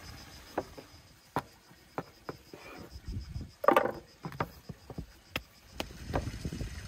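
Pie dough being cut and pulled apart on a wooden board: scattered soft knocks and taps of hands and knife on the board, with a louder knock just under four seconds in.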